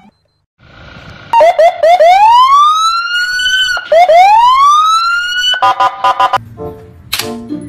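Police car's electronic siren: three quick yelps, then two long whoops that each rise in pitch and break off, followed by a brief steady buzzing tone. Music comes in near the end.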